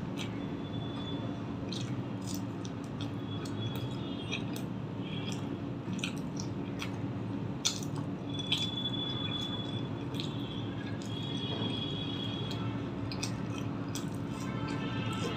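Close-miked eating: chewing and wet mouth sounds as paratha with egg curry is eaten by hand, with many small clicks, over a steady low hum.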